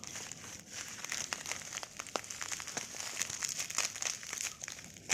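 Packaging being handled and opened by hand, crinkling and crackling with many small irregular clicks, as a fidget spinner is unboxed.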